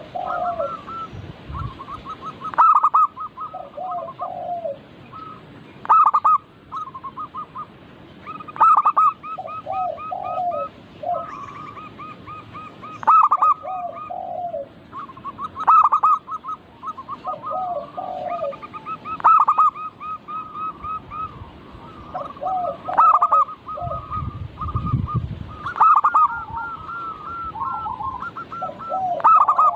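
Zebra doves (perkutut) cooing: a loud staccato song phrase about every three seconds, over a near-continuous run of trilling coos from other doves.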